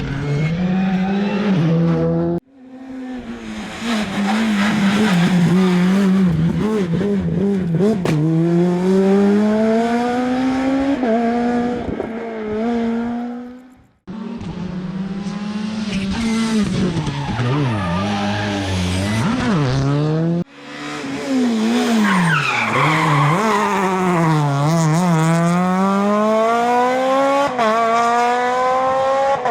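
Rally car engines revving hard at full load, pitch climbing through the gears and dropping back on lift-off and braking, with tyre skidding. Several separate car passes follow one another, each breaking off suddenly, about 2 s, 14 s and 20 s in.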